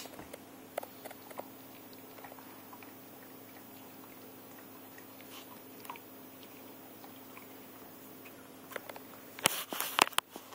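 A dog mouthing and biting at a small pepperoncini: scattered faint clicks at first, then a burst of louder clicks and knocks near the end.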